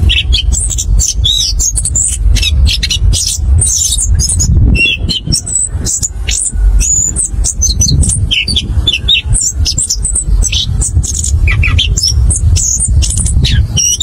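Chestnut-capped thrush singing a fast, unbroken rolling song of short high whistles and quick chattering notes, over a steady low rumble.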